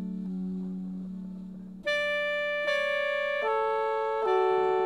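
Experimental jazz instrumental music. A low held note fades, then about two seconds in a louder line of long sustained notes begins, changing pitch roughly once a second.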